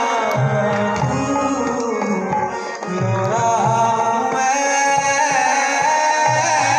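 Music with tabla drumming under a melody line, starting suddenly.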